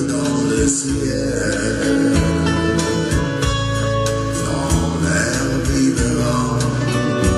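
Music with guitar.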